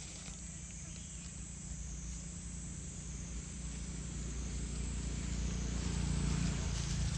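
Steady outdoor ambience of insects chirring in a high, even drone, under a low hum that grows louder toward the end like an approaching engine.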